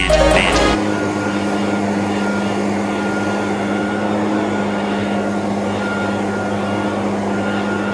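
Handheld leaf blower running at a steady speed, a constant hum under the rush of air, clearing grass clippings off concrete. A hip-hop beat cuts off within the first second.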